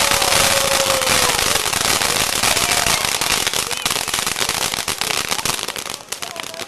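Ground fountain fireworks spraying sparks with a dense crackling hiss, full of sharp pops, slowly thinning out and dropping quieter near the end.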